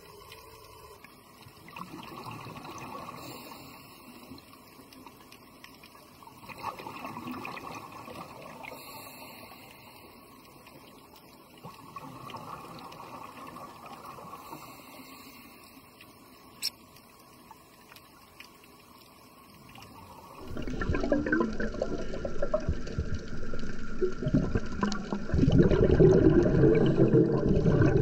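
Underwater scuba diver's exhaled bubbles, rising in swells of bubbling every four to five seconds. About two-thirds of the way in this turns into a much louder, continuous rush of bubbling water close to the microphone.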